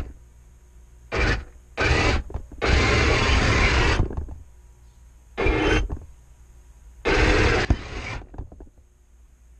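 Radio-controlled model tank driving in short spurts: five bursts of its drive running, the longest about a second and a half, the first very short, with near-quiet pauses between them.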